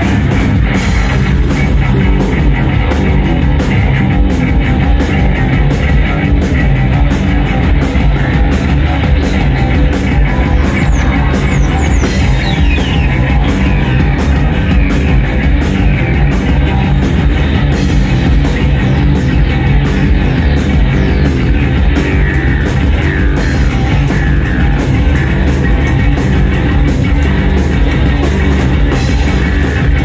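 Live band playing loud, dense rock music: a heavy, pulsing low end with drums and guitar, plus a few sliding high tones near the middle.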